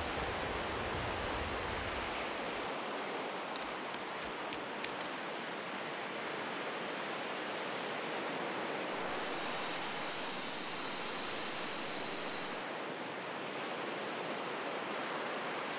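Steady wash of sea surf and wind on a beach. A few faint clicks come around four seconds in, and a high hiss lasts about three seconds near the middle.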